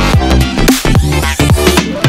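Background electronic music with a driving beat and bass notes that glide down in pitch again and again, with a rising sweep in the high register in the second half.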